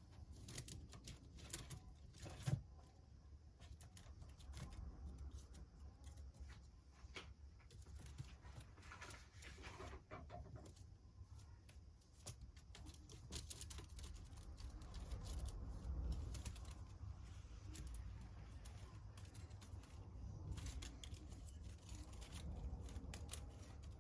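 Baby kittens playing in and around a basket: faint scratching, rustling and light irregular tapping, with one sharp knock about two and a half seconds in.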